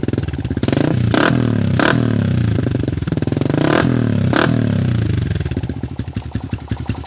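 Yamaha New Vixion's single-cylinder four-stroke engine through an R9 Mugello aftermarket slip-on exhaust, revved up twice from idle and allowed to fall back, with two sharp cracks near the top of each rev before it settles to a lumpy idle.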